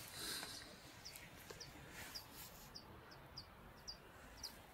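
A small bird calling: faint, short high chirps repeated about twice a second. A brief soft rush of noise comes near the start.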